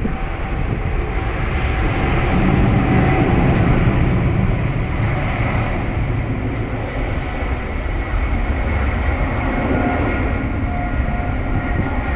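Boeing 777's jet engines running loud: a steady, even roar, with faint steady whining tones joining in the second half.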